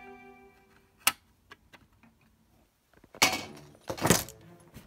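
Handling noise from a knurled metal pin vise and plastic model parts: a sharp click about a second in, a few faint ticks, then two loud short bursts of handling noise near the end. Background string music fades out at the start.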